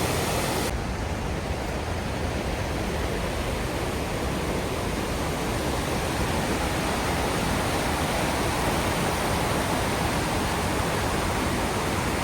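Steady rush of a waterfall, an even roar of falling water with no pauses.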